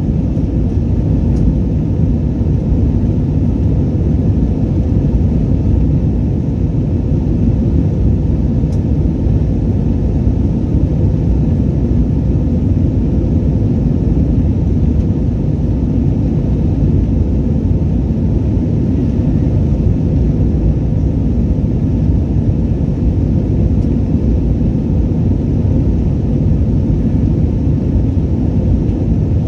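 Steady low rumble of an Airbus A321 in flight, its jet engines and the rushing air heard from inside the passenger cabin, unchanging throughout.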